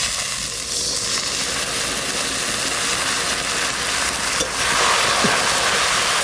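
Water poured into a hot kadai of mustard oil, panch phoron and jaggery sets off a sudden steady sizzle and hiss, which swells a little near the end. This is the first stage of melting the jaggery into syrup.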